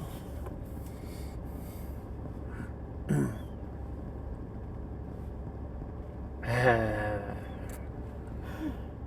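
Two brief voice-like fragments over a steady low hum: a short one about three seconds in and a longer one with falling pitch near seven seconds.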